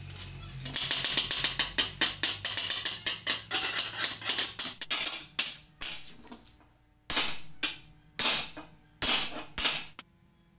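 Quick run of sharp metallic taps, then a handful of longer scraping strokes: slag being chipped and brushed off a fresh arc weld on steel square bar.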